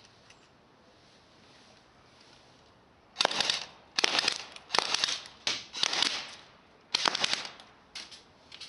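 Electric airsoft Tommy gun firing 6 mm plastic BBs in short full-auto bursts, about six bursts after a few seconds of quiet.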